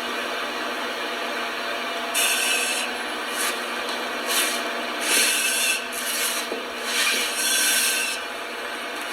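Firefighter's air pack (self-contained breathing apparatus) in use: a person breathing through the face piece and regulator. Each breath gives a short, high hiss, repeating about once a second or so from about two seconds in, over a steady faint hiss.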